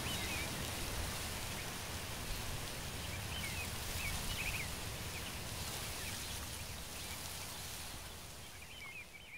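Outdoor nature ambience: a steady hiss with a few faint bird chirps here and there, fading out near the end.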